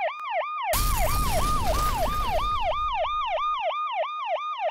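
Siren sound effect in a fast yelp, each wail dropping in pitch, about three to four times a second. About a second in, a sudden explosion-like boom with a deep rumble breaks in and fades out over the next two or three seconds while the siren goes on.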